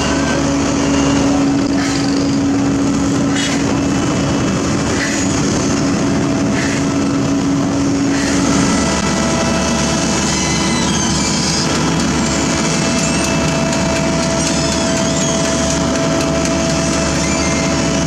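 Sumitomo HA60C asphalt paver working close up: its engine running steadily while the slat conveyor chains carry asphalt mix, with a few knocks in the first half. The steady hum shifts to a higher tone about halfway through.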